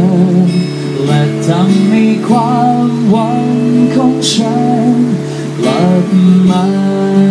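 A man singing a slow song with a wavering, held melody over a strummed acoustic guitar.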